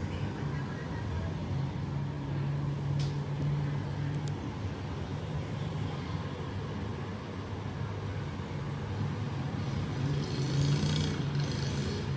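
Steady low mechanical hum, with faint clicks about three and four seconds in and a brief hiss near the end.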